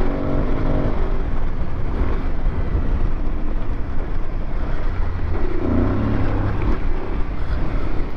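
Aprilia Tuareg 660's parallel-twin engine running under throttle over heavy wind noise on the camera microphone. The revs rise and fall about five and a half seconds in.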